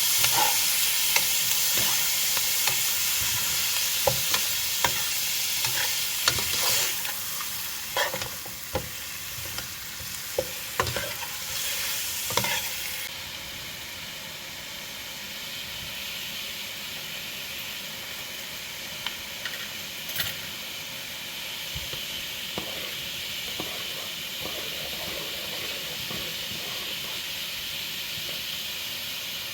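Food sizzling as it fries in a cooking pot, with a utensil knocking and scraping against the pot as it is stirred through the first half. After that the stirring mostly stops and a steadier, somewhat quieter sizzle goes on, with only an occasional click.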